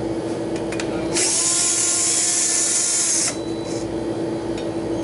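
Cordless drill-driver runs for about two seconds, spinning up and then holding speed as it backs out a screw from the old condenser fan motor's mounting bracket. A steady hum runs underneath, with a few small handling clicks.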